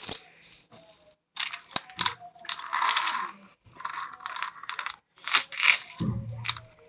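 Metal rupee coins clinking and jingling as hands rummage through a heap of coins, in quick irregular clicks. A short dull thump about six seconds in.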